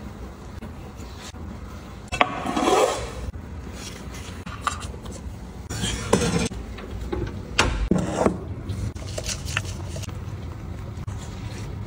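Kitchen handling sounds of bread-making: rubbing and scraping in several short bursts, a longer one about two seconds in and others around six and eight seconds in, as bread dough is shaped and a metal loaf pan is set on an oven rack.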